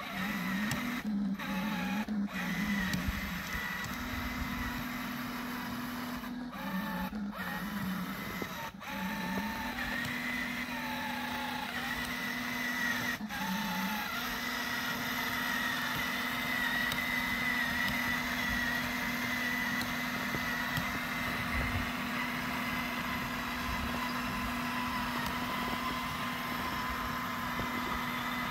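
Remote-controlled model tank driving through snow: a steady electric motor whine that wavers in pitch during the first half and holds steadier later.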